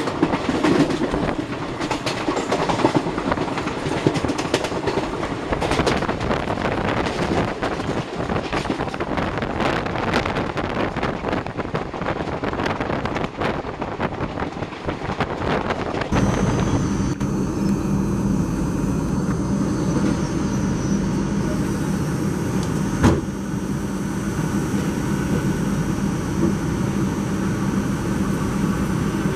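Indian Railways express train running at speed, heard from the open door of a coach: wheels clattering over the rails. About halfway through it changes abruptly to a steadier running noise with a constant hum, with one sharp clack about three quarters of the way through.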